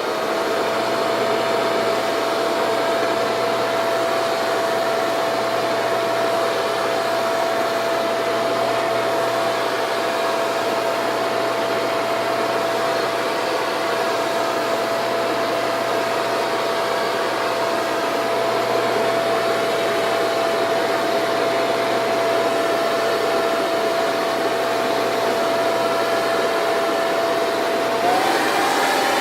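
Leaf blower running steadily: a rush of air with a constant high whine. The whine steps up slightly in pitch and gets a little louder near the end as the speed rises.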